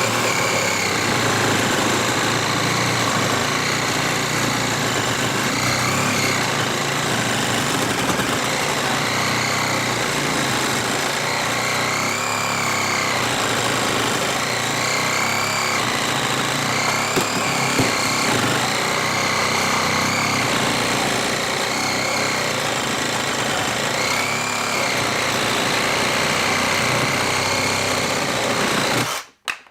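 Cordless reciprocating saw running continuously, cutting through a wooden 4x4, its high whine wavering up and down in pitch now and then. It stops abruptly near the end.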